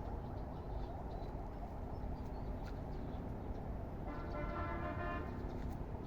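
Steady low background rumble, with one held, pitched honk-like tone about four seconds in that lasts just over a second.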